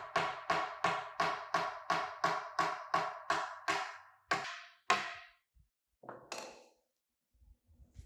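Steady hammer blows on wood-working steel, about three a second, each with the same ringing tone. Two heavier blows near the middle end them, followed by a short scrape.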